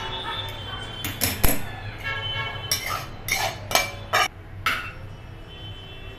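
Stainless-steel cookware clanking: a colander insert and pots knocked and set down on the gas stove. About nine sharp metal knocks, each ringing briefly, come between about one and five seconds in.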